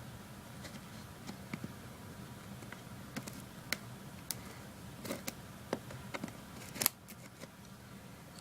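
Scattered sharp clicks and snaps from packaging being handled and cut, the sharpest snap near the end, over a faint steady hum.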